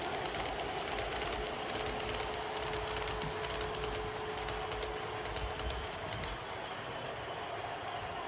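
OO gauge model Class 37 diesel locomotive running round the layout hauling wagons, a steady whine under a hum with light irregular clicking, the clicks thinning out in the last couple of seconds.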